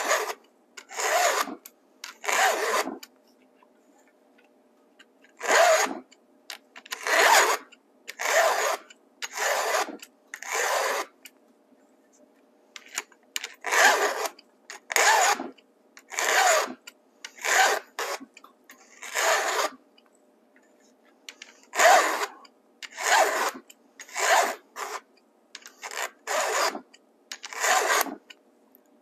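Stihl 2-in-1 chain sharpener's files rasping across the cutters of a chainsaw chain: about twenty single push strokes, each about half a second, one way only, in short runs with brief pauses between.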